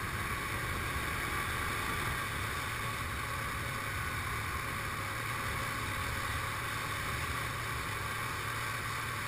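ATV engine running steadily as the quad drives through shallow floodwater, with water splashing and hissing off the tyres.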